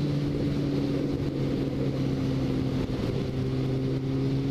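Kawasaki ZX-12R's inline-four engine running at steady cruising revs, heard from the rider's position with wind rush. The pitch shifts slightly about a second in and again around three seconds.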